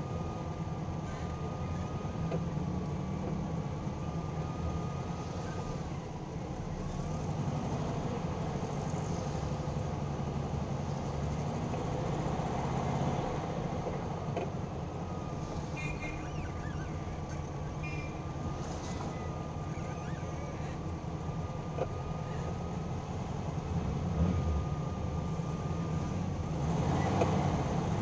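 Air-cooled Volkswagen's flat-four engine running at a crawl in slow town traffic, heard from inside the cabin as a steady low drone, with a faint steady whine above it.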